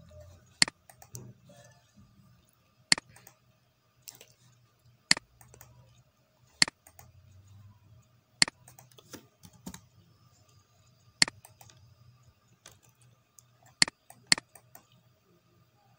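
Computer keyboard and mouse clicking: about eight sharp, separate clicks a second or two apart, with fainter key taps between them, over a faint low hum.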